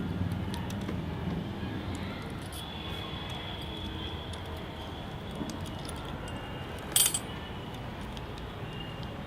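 Small metal mounting parts clinking and clicking as they are handled, with light scattered clicks and one sharper clink about seven seconds in, over a steady low background rumble.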